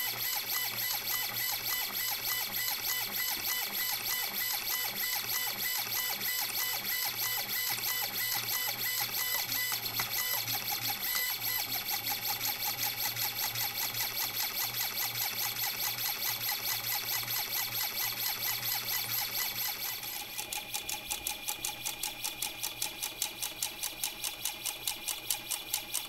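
Stepper motor of a robotic safe auto-dialer spinning a safe's combination dial, a high-pitched whine over fast ticking as it works through combinations. About two-thirds of the way through, the sound changes to a pulsing rhythm of about three pulses a second.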